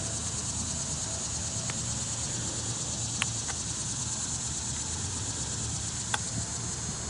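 Steady chirring of crickets over a low hum, with a few short sharp clicks, the loudest about three and six seconds in.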